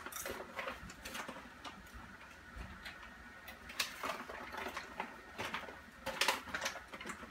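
Faint, scattered light clicks and rustling from handling food packaging and popcorn at a kitchen counter, with a few sharper ticks near the middle and toward the end.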